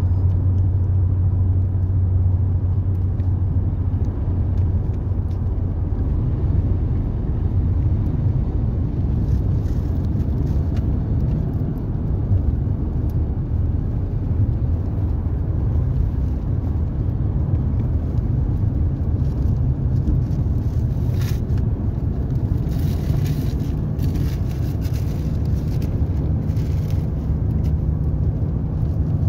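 Car driving on a road, heard from inside the closed cabin: a steady low rumble of engine and tyres. The low drone moves up in pitch about two-thirds of the way through.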